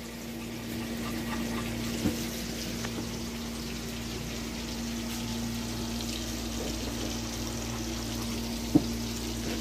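A steady hiss over a constant low hum, with a light knock of kitchenware about two seconds in and a sharper one near the end.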